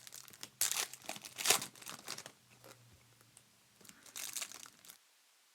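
Foil trading-card pack wrappers being torn open and crinkled: several short rips and rustles, then a brief quiet gap near the end.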